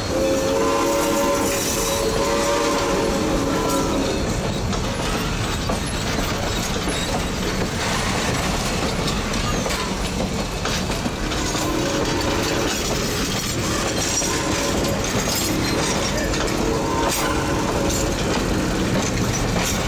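Vintage steel passenger coaches of a steam excursion train rolling slowly past close by, their wheels clacking over the rail joints with a steady rumble. A wavering held tone sounds over it for the first few seconds and again for several seconds past the middle.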